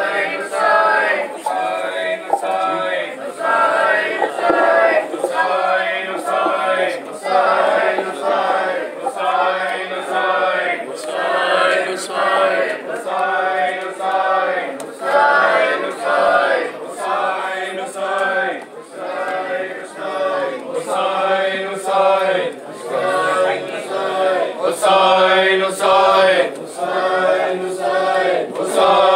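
Crowd of men and boys chanting a mourning lament (nauha) in unison, in short repeated phrases, with sharp slaps about once a second in time with the chant: hand-on-chest beating (matam).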